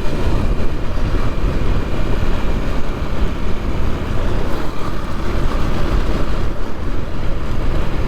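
Motorcycle, a KTM Duke 390, running steadily on the move, with wind rushing over the microphone.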